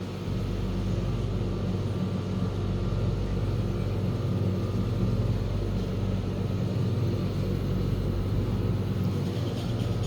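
A vehicle running steadily with an even, low hum.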